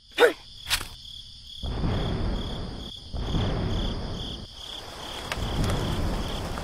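Insects chirping in a steady, evenly pulsing high trill over swelling background noise, after a short falling whistle and a click at the start.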